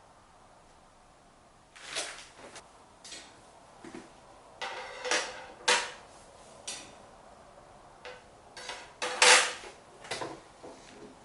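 Thin stainless-steel plates of a Picogrill 398 fire pit clanking and rattling as they are handled, a dozen or so irregular knocks, some with a brief metallic ring, the loudest about nine seconds in.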